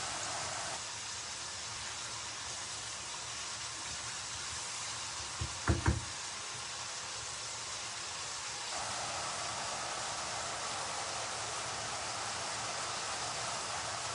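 A pan of food sizzling steadily on the stove, with a quick run of three sharp knocks, like a utensil striking the pan, a little before the middle. The sizzle drops lower about a second in and grows louder again past the middle.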